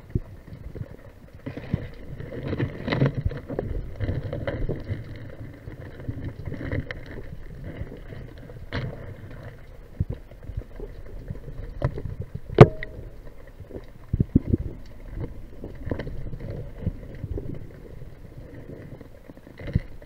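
Muffled underwater rumble of water moving past a camera housing during a spearfishing dive, with scattered small clicks and knocks. One sharp knock a little past halfway is the loudest sound.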